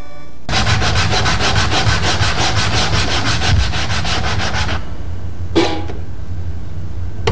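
A piece of reed cane rubbed rapidly back and forth on sandpaper, about six quick strokes a second, being shaped for an uilleann pipe reed. The rubbing starts about half a second in and stops after about four seconds; one short scrape follows about a second later.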